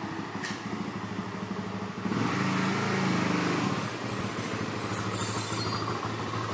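Kawasaki sport ATV engine running as the quad is ridden, revving up about two seconds in and then settling back to a steady pull.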